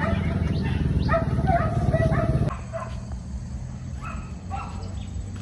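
Hunting dogs barking and yipping in quick, repeated calls over a steady low rumble. Both cut off suddenly about halfway through, after which the barks come more sparsely.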